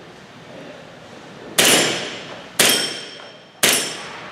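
CO2-powered 1911 blowback airsoft pistol firing three shots about a second apart, the slide cycling on each. Each shot is a sharp crack with a short metallic ring.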